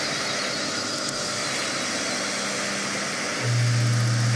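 Live experimental electronic noise music: a dense steady hiss with a low bass drone that comes back in loudly about three and a half seconds in.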